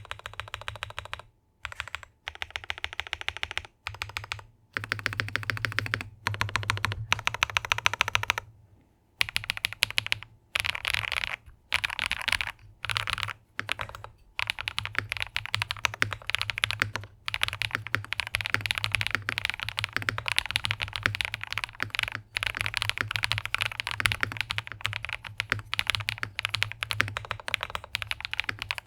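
Feker IK75 mechanical keyboard with KTT Wine Red switches and white pudding keycaps being typed on fast, in runs of rapid keystrokes broken by brief pauses.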